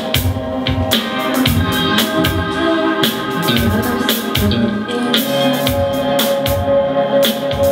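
Live band music: a drum kit keeping a steady beat under sustained keyboard or organ chords, with one held note coming in about five seconds in.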